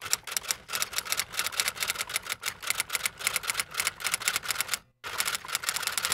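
Typewriter sound effect: a rapid, even run of key clicks, with a brief break a little before the end.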